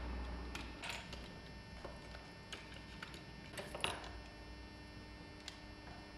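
Scattered small clicks and taps of metal hand tools working on an opened walkie-talkie's circuit board, over a faint low hum that fades during the first second or so. The clearest clicks come about a second in and again around three and a half to four seconds in.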